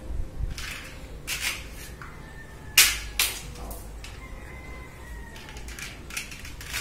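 Toy suction-cup dart rifle firing with a sharp snap about three seconds in, followed shortly by a softer knock. Quieter clicks and knocks before and near the end come from handling and reloading the gun.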